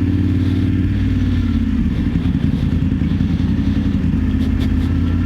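BMW F850GS motorcycle's parallel-twin engine running at a steady road speed, its pitch dipping slightly about a second in and then holding steady.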